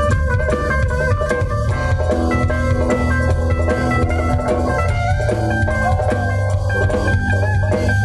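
Live rock band playing on stage: drum kit, bass and electric guitar with sustained melodic notes over a steady beat.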